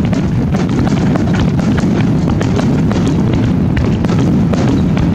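Aerial firework shells bursting in quick succession: a continuous low rumble of overlapping booms, with many sharp pops and crackles.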